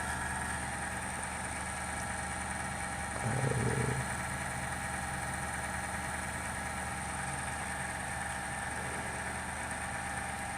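Desktop computer running with a steady hum and several steady tones, its fans turned down, with a brief louder low sound a little over three seconds in. The owner hears an unexplained rattling or rumbling from it that he says is not the fans.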